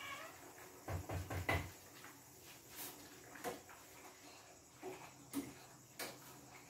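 Metal spoon clinking and knocking against a cooking pot as soup is stirred: a quick run of clinks about a second in, then a few single clinks.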